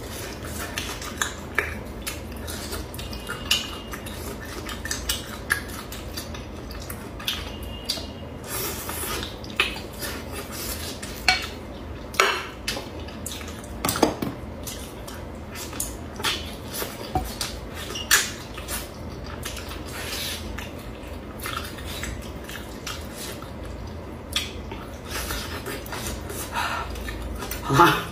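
Close-miked eating of braised pork trotter: many irregular, sharp clicks and wet smacks from chewing the sticky skin, mixed with the clink of chopsticks against the plate.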